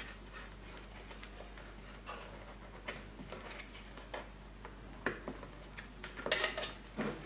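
Faint scattered clicks and light knocks of hands handling the lawnmower's plastic battery housing and wiring connector, with a quicker run of clicks about six seconds in.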